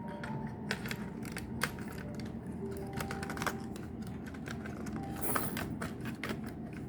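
Irregular light clicks and taps of plastic and metal laptop parts being handled as a laptop motherboard is fitted into the chassis.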